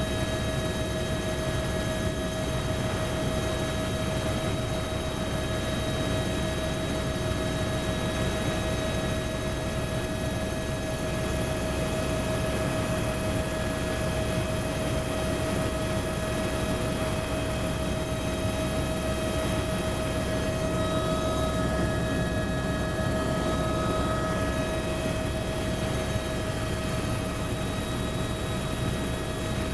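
Helicopter in steady level flight heard from inside the cabin: a constant low rumble of rotor and engine with steady whining tones above it.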